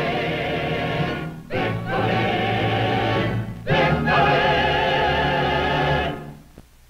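Choir singing three long held chords, each louder than the one before, dying away about six seconds in.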